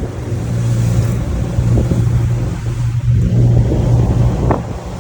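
Motorboat engine running with a steady low drone, under rushing wind and splashing water noise as the boat crosses wind-whipped waves.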